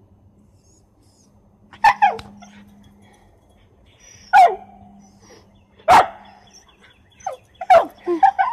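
A woman sneezing in a rapid series, about five sharp voiced sneezes a second or two apart, each falling in pitch.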